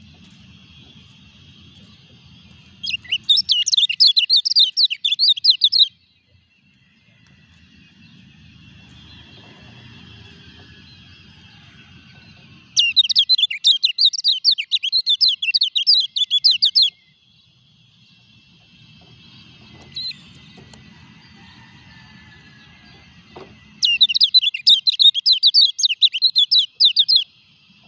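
Caged kecial kuning (white-eye) singing three bursts of rapid, high chattering song a few seconds long, with pauses of several seconds between them. The bird is in moult and still singing.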